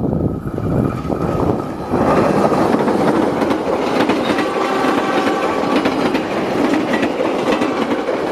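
A CC206 diesel-electric locomotive passes close by with a heavy low engine sound. About two seconds in, its passenger coaches take over: a loud steady rush of steel wheels on rail with a quick clickety-clack over the rail joints.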